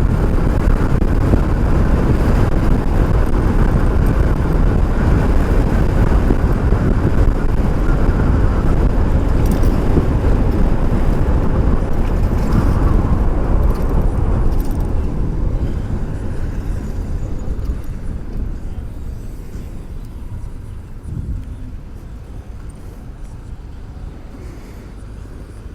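Wind and road rumble picked up by a helmet-mounted microphone while riding an electric bike. It is loud and steady at first, then fades off gradually over the second half.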